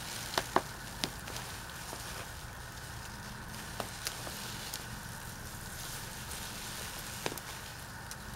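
Ginger leaves and stalks rustling as they are gripped and pulled about, with a handful of sharp clicks and snaps from a small garden tool working at the pot, the loudest in the first second.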